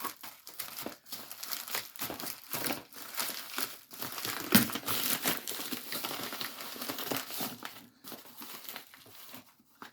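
Packaging being torn and crumpled open by hand, in irregular rustles that are loudest about halfway through and thin out near the end.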